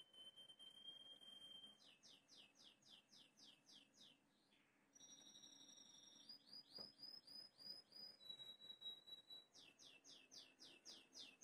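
Faint bird song: long held high whistles alternating with quick trills of falling chirps, about four a second, with the trills strongest near the end.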